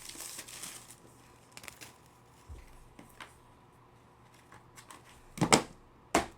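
Trading cards and pack wrappers being handled on a table: a rustle of wrapper at the start, scattered light clicks of cards, then two sharper knocks near the end.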